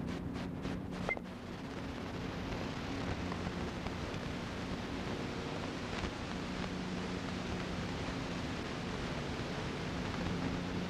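Steady background hiss with a faint low hum, broken by two faint ticks, about a second in and about six seconds in.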